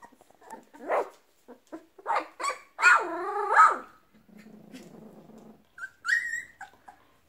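A litter of young puppies play-fighting, giving short yips and barks, then a longer wavering yelp a few seconds in. A low growl follows, and a high squeaky yip comes near the end.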